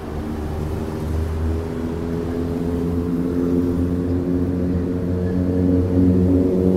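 An engine running steadily nearby: a low hum with several even tones that slowly grows louder.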